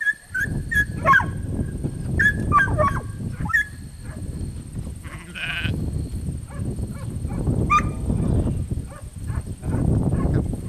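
Sheep bleating, with a clear bleat about five seconds in, over a steady low rumble. A few short high calls come in the first few seconds.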